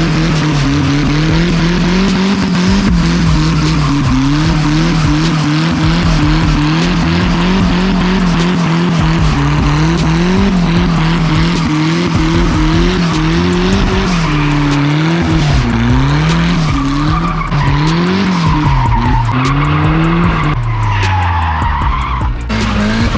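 Turbocharged Nissan Hardbody pickup's engine revving up and down while its rear tyres skid and squeal in a drift.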